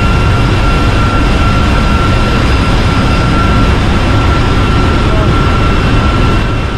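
Loud, steady drone of a ship's engine-room machinery: a deep rumble with a constant thin whine above it.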